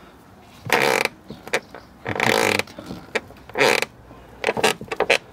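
Car door check (door limiter) creaking loudly as the door is swung: three long creaks about a second and a half apart, then a few short clicks. The creak comes from newly fitted door checks that grip the door very tightly.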